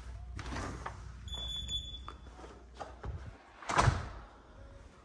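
Back door of a house being opened and shut: a short, steady electronic beep about a second and a half in, then a sharp thump near the four-second mark as the door closes. A low wind rumble on the microphone runs under the first three seconds.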